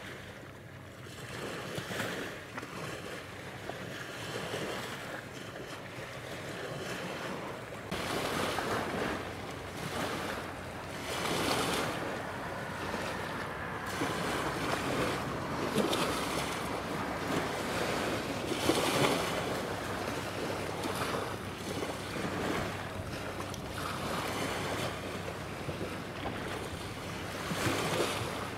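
Small waves washing ashore in irregular surges, with the engine of the training ship JS Kashima running as a faint steady low hum beneath them.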